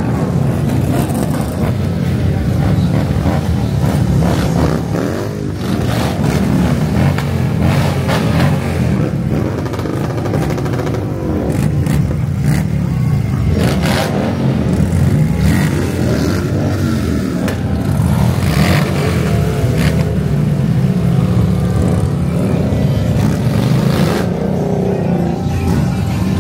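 Motorcycle engines running and revving, with several rising and falling revs and a few short sharp cracks along the way.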